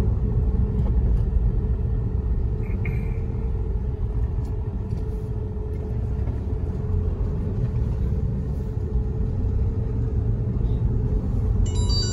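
A car driving, heard from inside the cabin: a steady low engine and road rumble. A brief high-pitched tone sounds near the end.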